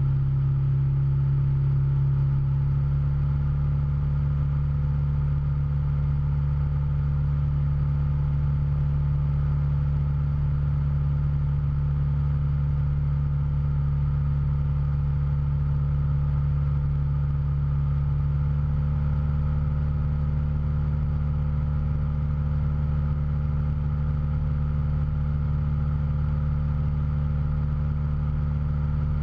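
Cessna 172's engine and propeller droning steadily in flight, one low pitch held evenly throughout.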